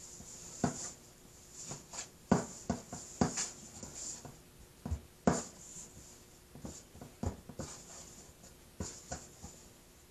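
Hands mixing and squeezing flour-tortilla dough in a stainless steel bowl: irregular soft thumps and squishes as the dough is pressed against the metal bowl, the loudest a few knocks a couple of seconds in and one about five seconds in.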